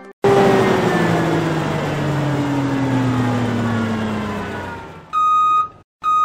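Logo sound effect: a loud rushing vehicle sound whose pitch falls steadily as it fades over about five seconds, followed by a reversing alarm beeping twice in steady single-pitch tones.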